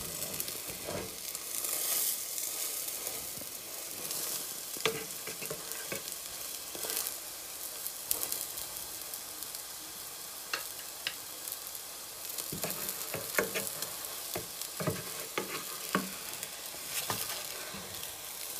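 Egg-coated bread frying in a nonstick pan with a steady sizzle. Scattered light clicks and taps of a fork and wooden spatula against the pan come through, mostly in the second half.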